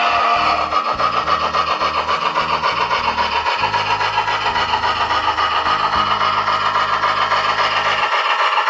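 Soundtraxx Tsunami 2 decoder's steam sound from a model Union Pacific 3985 Challenger running by: a fast, steady run of hissing exhaust chuffs through the locomotive's small speakers.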